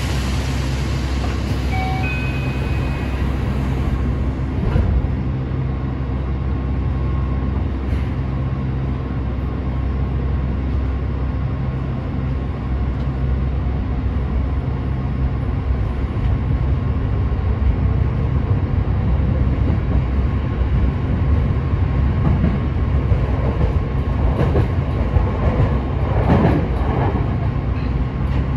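Yokohama Municipal Subway Blue Line 3000A-series train running, heard from the rear cab: a steady low rumble of wheels and running gear that grows a little louder in the second half. A few short high beeps sound about two seconds in, and the wheels clatter over rail joints near the end.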